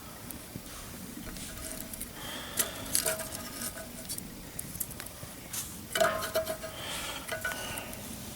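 Metal objects clinking and clattering in two short bursts, about three seconds in and again about six seconds in, each clink leaving a brief ringing tone.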